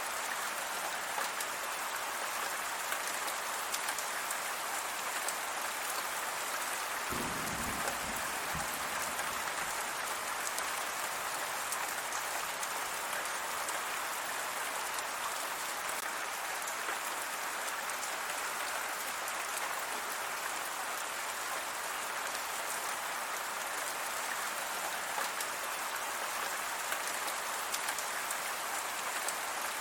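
Steady rain, an even hiss, with a brief low rumble about seven seconds in.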